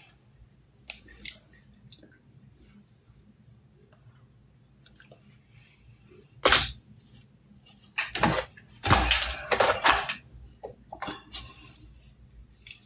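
Small cosmetic items clicking and clattering as they are handled: a sharp click about six and a half seconds in, then a few seconds of rattling and knocking, as of lip gloss tubes and caps being picked up and put down.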